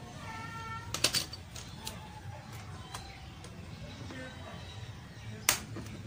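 Sharp metallic clicks of pliers working a piece of steel wire: a quick cluster about a second in, a few lighter clicks after, and one loud click near the end.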